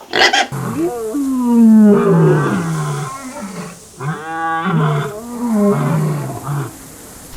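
An animal calling: a series of loud, pitched calls, each under a second long, that rise and fall in pitch.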